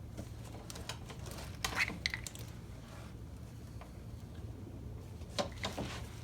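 Light clicks and clatter of small hard parts and tools being handled, with a cluster about two seconds in and another near the end, over a steady low hum.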